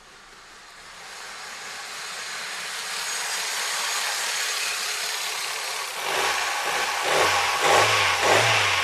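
Toyota Avensis engine being started after a head gasket repair: the engine sound swells steadily, then turns into a pulsing rhythm about six seconds in as it comes to life.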